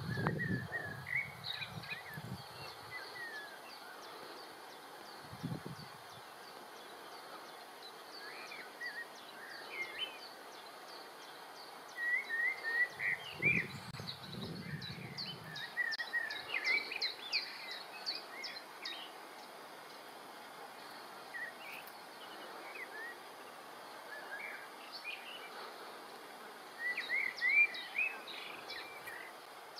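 Meadow ambience with birds singing: short, bending chirps and trills come and go throughout, busiest around the middle and again near the end. Low rumbles break in near the start and for a few seconds around the middle.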